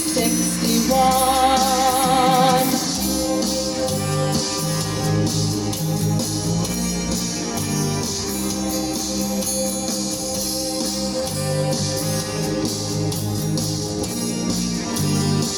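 Song: a voice sings a held line with vibrato over the band for the first couple of seconds, then the instrumental carries on with a steady beat.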